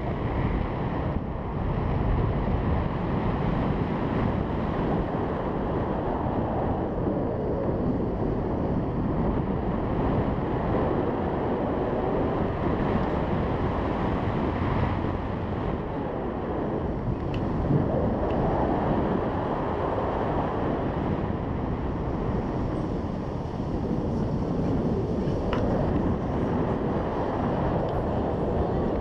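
Wind rushing over an action camera's microphone in flight under a tandem paraglider, a steady low rumble.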